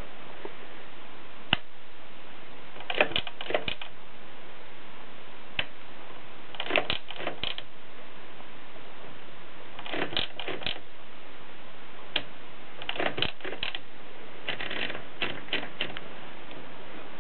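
Voss typewriter keys striking in short bursts of three to five keystrokes, with single strokes between, over a steady background hiss.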